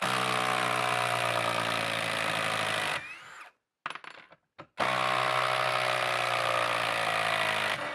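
Ryobi P238 brushless impact driver hammering two 6-inch SPAX screws back out of a wood block, one after the other. There are two runs of about three seconds each, the pitch sagging slightly during each. A short pause with a few light clicks separates them as the bit moves to the second screw.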